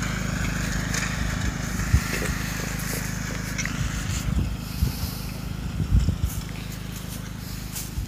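Small riding lawn tractor engine running steadily as it tows a rake across the lawn, heard from a distance, with a few low knocks on the microphone.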